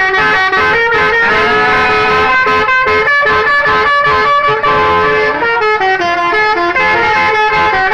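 Bus telolet horns playing a rapid melodic run of horn notes, several pitches sounding at once and stepping up and down.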